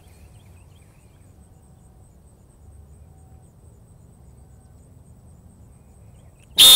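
Faint open-field ambience with a thin insect chirring, then near the end a sudden, very loud, shrill blast of a dog-training whistle.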